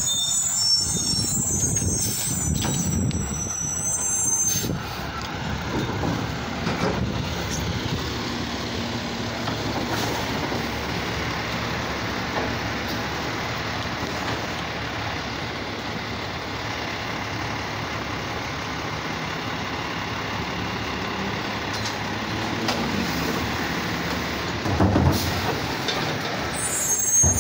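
Automated side-loader garbage truck working at the curb: its diesel engine runs and revs to drive the hydraulic arm as it lifts and empties a wheeled trash cart. High-pitched brake squeals near the start and near the end, and a couple of heavy knocks toward the end.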